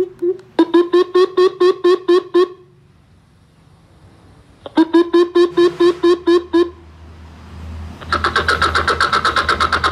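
Recorded bird calls played through a portable hunting speaker as the tracks are switched. Two runs of rapid, low repeated hoots, about six a second, are separated by a pause. About eight seconds in, a faster, higher-pitched call series begins.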